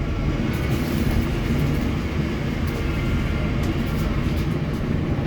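Wrightbus StreetDeck HEV hybrid double-decker bus running, its Mercedes-Benz OM934 four-cylinder diesel giving a steady, loud low rumble with road noise.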